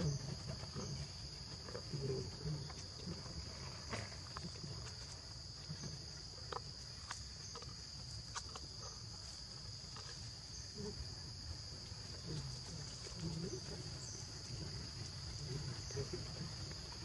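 Steady high-pitched insect drone, with scattered faint clicks and soft low sounds.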